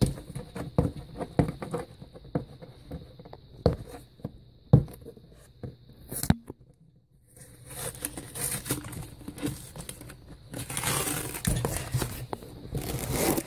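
A cardboard shipping box is opened by hand. Packing tape is pulled off and the flaps and packing are handled, with scattered sharp clicks and knocks. After a brief lull comes a long stretch of paper and cardboard rustling, loudest near the end.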